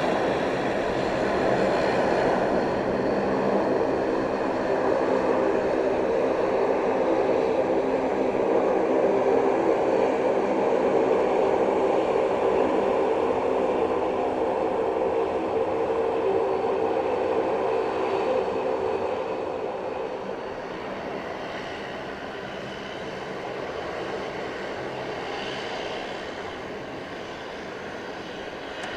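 Jet engines of a Boeing 777-200ER at takeoff thrust: a loud, steady engine noise with a hum of steady tones, dying away over the last several seconds as the airliner moves off.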